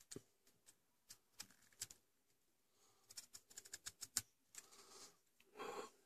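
Victorinox Solo pocket-knife blade slicing through a cucumber onto a cutting mat: faint crisp clicks and taps, with a quick run of them about three to four seconds in and a short rustle near the end.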